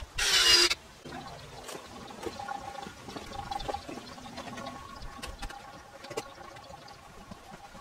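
Wooden rafters and braces being handled: a brief loud scraping rush near the start, then scattered light knocks of timber over a faint steady hum.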